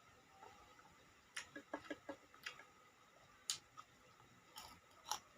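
Close-up eating sounds: scattered soft clicks and smacks, with a quick run of clicks about a second and a half in and single ones spread over the rest.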